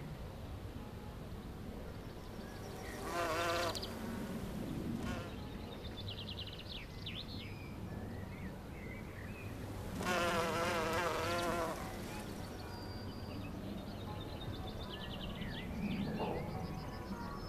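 Bumblebee buzzing as it flies close past the microphone, twice: briefly about three seconds in and for about two seconds near the middle, the pitch wavering as it passes.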